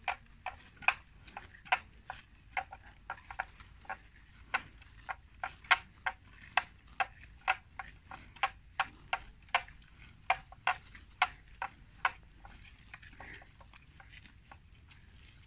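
Water buffalo tearing and cropping plants as it grazes: a run of sharp, irregular snapping clicks, about two a second, stopping about twelve seconds in.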